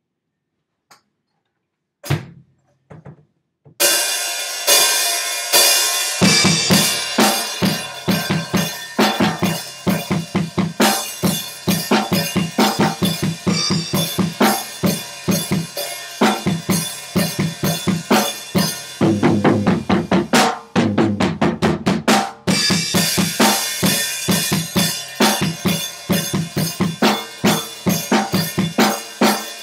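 Sonor acoustic drum kit being played: after a lone hit, a steady groove with cymbals and snare starts about four seconds in, and the bass drum joins about two seconds later. About two-thirds of the way through, a quick fill of fast strokes without cymbals breaks the pattern before the groove comes back.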